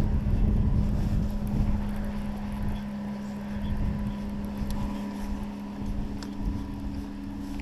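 A boat's electric trolling motor humming steadily, with a second, slightly higher tone joining near the end, under wind rumbling on the microphone.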